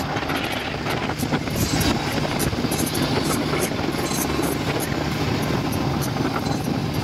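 Motorized outrigger boat (bangka) engine running steadily, with wind and water noise over it.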